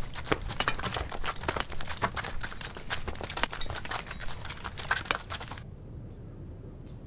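Dense, irregular metallic clinking and knocking of hand tools striking rock, hammers on steel drill rods and chisels, which stops abruptly about five and a half seconds in. A faint outdoor hush with a few bird chirps follows.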